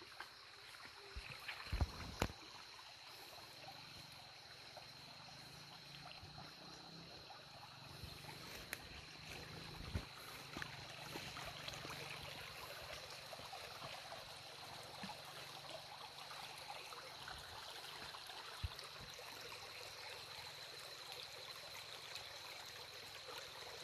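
Faint flowing and trickling of a shallow forest stream, with a steady high-pitched whine over it. A few sharp cracks come about two seconds in and again about ten seconds in.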